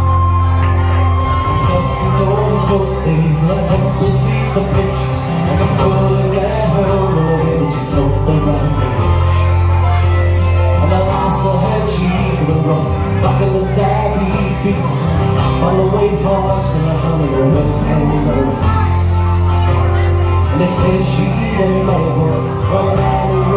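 Live folk band playing an instrumental break: strummed acoustic guitars and electric bass under a melody on fiddle and tin whistle, with some voices from the room.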